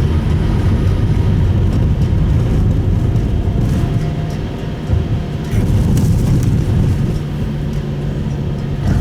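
Car interior noise while driving: the Subaru Impreza Sport's engine running steadily under a low rumble of tyre and road noise, with a brief dip in level about halfway through.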